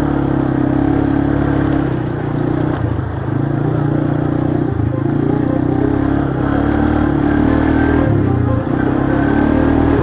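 ATV engine running under throttle, heard from on board the moving quad, its pitch rising and falling with the throttle.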